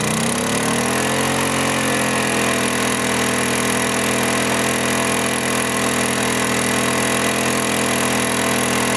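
Portable generator's engine running under an electrical load, its pitch rising over the first second or two as it speeds up for the load, then holding steady.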